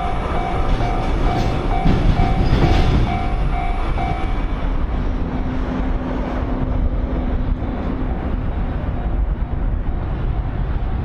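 Japanese level-crossing warning bell ringing in its steady kan-kan rhythm, about two strokes a second, while a train runs past. The bell sinks under the train's rolling noise about four seconds in.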